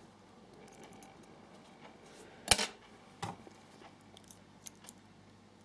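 A few small metal clicks and taps from the parts of a disassembled euro cylinder lock being handled, its pins and springs being taken out. One sharp click comes about halfway through, a softer one follows shortly after, and faint ticks come near the end.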